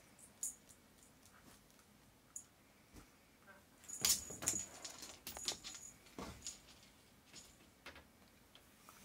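Cat-teaser wand toy jingling in short bursts as it is swung and batted, the loudest cluster about four seconds in, with a few soft knocks.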